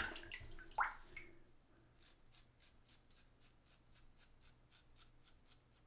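Leaf Twig razor with a Feather blade scraping through lathered stubble on the chin in quick short strokes, three or four a second. A short rising tone is heard about a second in.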